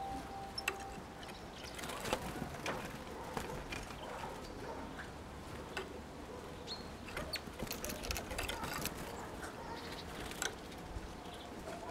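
Great tit pecking at seeds in a wooden bird feeder: irregular sharp taps and clicks, a few a second. A faint steady tone is also heard for about the first second.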